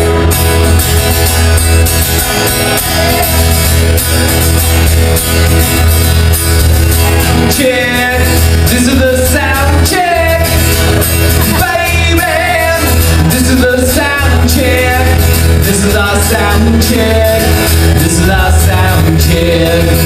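Live rock band playing loudly: electric and acoustic guitars, bass guitar and drums, with a man's lead vocal coming in about eight seconds in.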